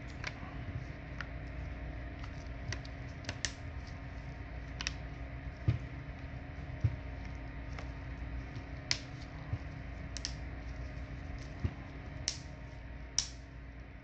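Samsung Galaxy A10e back cover clicking into place as it is pressed onto the phone's frame: a scattering of sharp, irregular clicks and snaps, a few of them louder, over a steady low hum.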